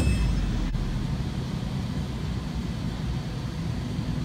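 Steady low rumble with a light hiss from an Otis Hovair air-cushion people-mover tram running along its guideway, opening with a brief loud burst and easing off slightly toward the end.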